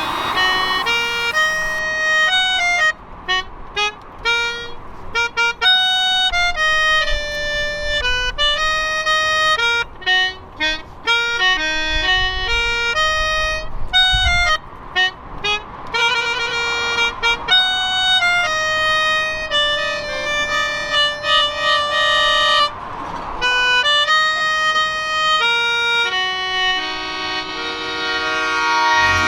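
Instrumental music: a single wind or bowed instrument playing a slow melody of held notes, stepping up and down with short breaks between phrases.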